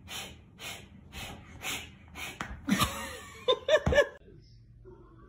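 A person breathing in quick breathy puffs about twice a second, like stifled laughter. Then a few short voiced yelps or laughs, the loudest part, cutting off suddenly about four seconds in.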